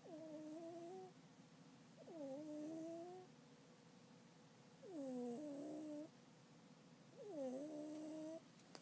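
Sleeping cat snoring: four faint, pitched snores with each breath, one every two to three seconds, each dipping in pitch and then levelling off.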